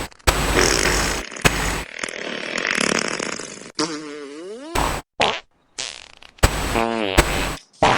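A rapid run of comic sound effects, each cut off abruptly into the next, with fart noises among them and a pitched sound that slides downward about four seconds in.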